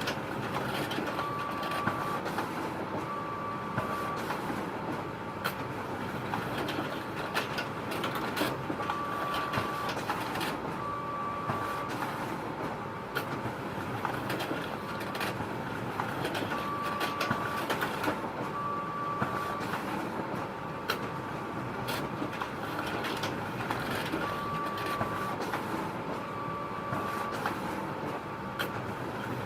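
Photocopier running steadily with frequent sharp clicks and a faint constant hum. A pair of short beeps sounds about every eight seconds.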